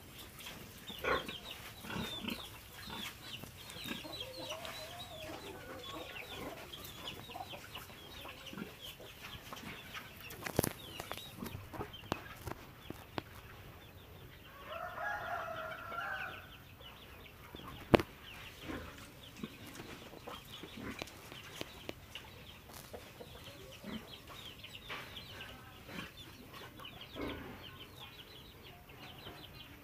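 Chickens clucking and chirping around a farmyard, with one longer call about halfway through. Two sharp knocks come at about a third and about two thirds of the way through.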